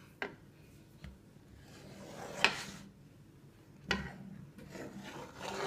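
Table knife sawing through sheet cake and scraping against the metal baking pan: a few soft knocks and rubbing scrapes, the loudest about two and a half seconds in.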